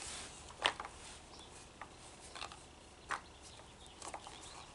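A few scattered sharp clicks and light knocks: the plastic bump head of a string trimmer being handled and turned over in the hands.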